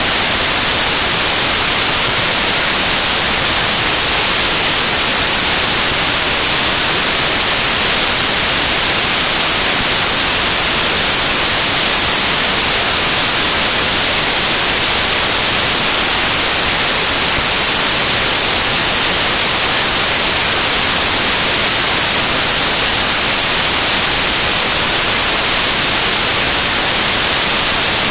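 Loud, steady static hiss, strongest in the high end and unchanging, covering the sound track in place of the interview audio: an audio recording or transfer fault.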